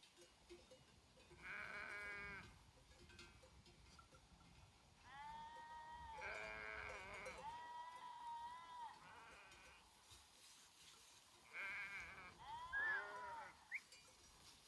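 A flock of sheep bleating: about five calls from several animals, some overlapping, with the loudest near the end.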